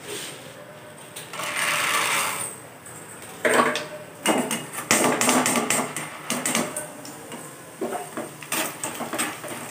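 Roasted split gram going into a steel mesh strainer set in hot oil in a kadai, with a hissing sizzle about a second and a half in. From about three and a half seconds on, the gram is stirred in the strainer, a quick irregular run of metallic clicks and scrapes.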